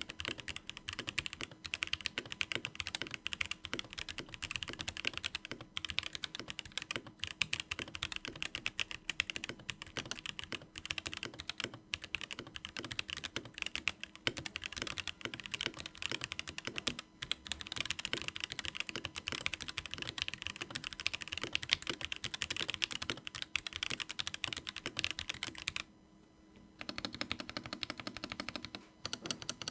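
Fast, continuous typing on a Pulsar PCMK TKL hot-swap mechanical keyboard, a dense clatter of keystrokes. Near the end it stops briefly and resumes with a deeper-sounding clatter.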